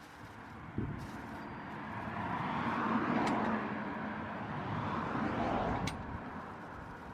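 A car driving past, its tyre and engine noise swelling to a peak about three seconds in and then fading away, with a few light clicks along the way.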